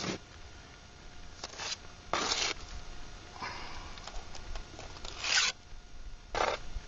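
Steel mason's trowel scraping and spreading wet mortar, in about six short strokes.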